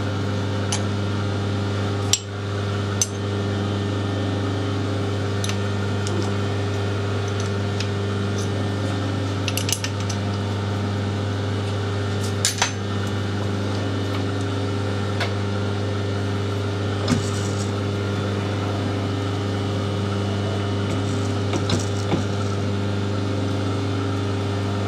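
Metal lathe running with a steady hum while a taper is turned on a stainless-steel air-rifle cocking lever with the compound slide. A few light metallic clicks and ticks from the tool, swarf and handles come through it.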